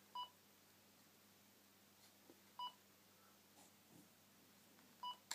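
Handheld colour-recognition device giving three short, identical electronic beeps, evenly spaced about two and a half seconds apart, as it is held against a shoe to read its colour. A small sharp click comes right at the end.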